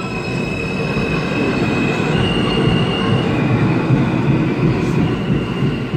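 New York City subway train pulling out of the station past the platform: a loud rumble of wheels on rail with a high whine that jumps in pitch a few times.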